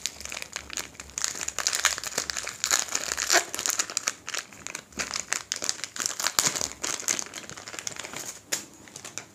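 Small clear polythene bag crinkling in the fingers as it is worked open, a run of irregular crackles.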